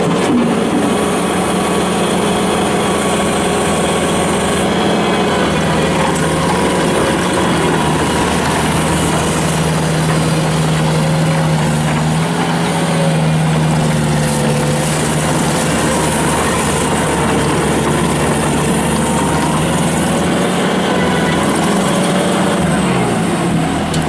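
Bobcat T300 skid steer's Kubota turbo diesel engine running steadily, its pitch shifting slightly now and then.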